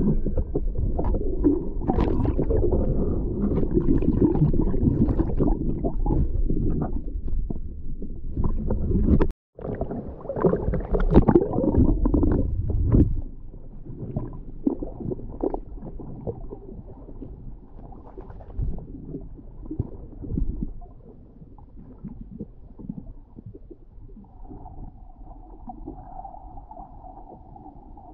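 Muffled underwater rumbling and gurgling of water heard through an action camera's waterproof housing, with scattered crackle. It breaks off abruptly at a cut about a third of the way in, comes back at once and loud, then grows quieter.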